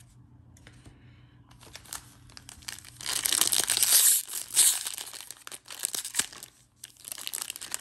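Foil wrapper of a jumbo baseball card pack crinkling and tearing as hands peel open its crimped end; the crinkling starts about a second in and is loudest around the middle, with a brief lull near the end.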